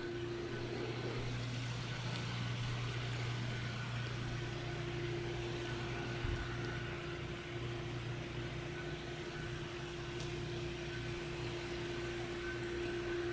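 A steady mechanical hum: a few constant tones under an even hiss, with a brief low knock about six seconds in.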